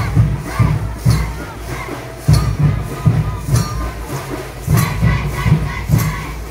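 Lezim jingles, metal discs on a wooden-handled chain, clashing in time with a beating drum over crowd noise. The drum plays several strokes a second in short phrases with brief pauses.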